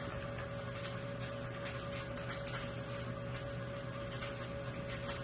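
A steady electrical hum with a few scattered light clicks, from a ball knocking around inside a plastic three-tier ball-track cat toy as a cat paws at it.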